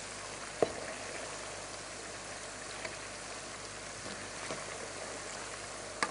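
Chicken pieces deep-frying in very hot oil in a pot, giving a steady sizzle. A metal spoon clinks against the pot about half a second in and again near the end.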